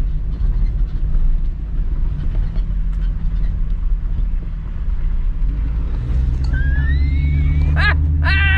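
Steady low road and engine rumble heard inside a moving car, growing a little stronger about six seconds in. Near the end, a man's voice makes short sounds, just after a rising whistle-like glide.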